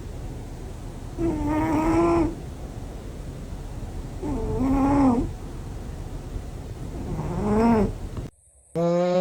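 Domestic cat snoring: three drawn-out pitched sounds that rise and fall, about three seconds apart, over a steady low rumble. Near the end the sound cuts out briefly, and a steadier, lower pitched drone begins.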